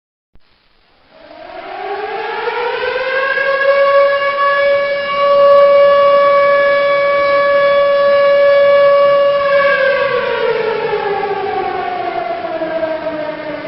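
Outdoor tornado warning siren winding up from silence and rising in pitch, holding one steady tone for several seconds, then winding down and falling. It begins to rise again near the end.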